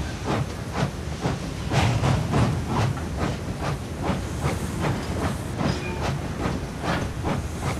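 A train of railway wagons rolling along the track. The wheels clack over the rail joints about twice a second over a steady hiss and rumble.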